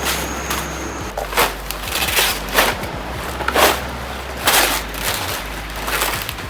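Packing material being torn and crumpled off a motorcycle: a run of rough rustling, crackling swishes, about five of them louder, over a low steady hum.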